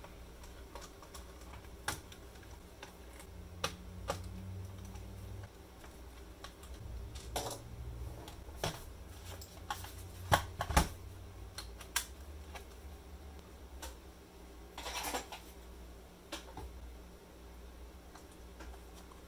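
Clicks and taps from handling an IBM ThinkPad X40's plastic case while its keyboard screws are taken out and the laptop is turned over and opened, with two sharp knocks close together about ten seconds in. A low steady hum runs underneath.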